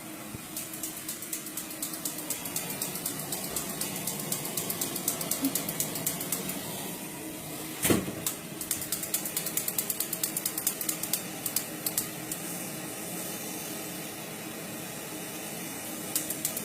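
Soldering torch flame hissing steadily on a copper pipe joint, with rapid crackling and spitting from the heated joint, several clicks a second, stopping for a while in the middle and near the end. One sharp knock about eight seconds in.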